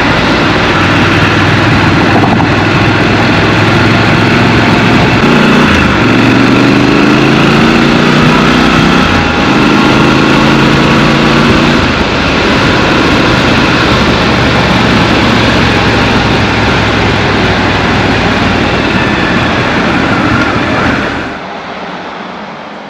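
Scrambler motorcycle riding, with its engine and wind rush heard from the rider's position. The engine note climbs and steps down several times as the bike pulls through the gears, then the sound drops away sharply near the end.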